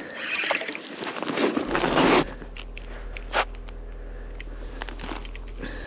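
Close handling noise: clothing rustling and crunching while an angler fights a lake trout at the ice hole. About two seconds in it gives way to a steady low hum with a few scattered clicks, which stops abruptly at the end.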